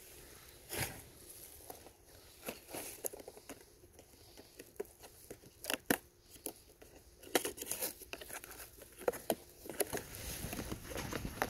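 Tripod packaging being opened and handled: irregular crinkling, rustling and sharp little clicks.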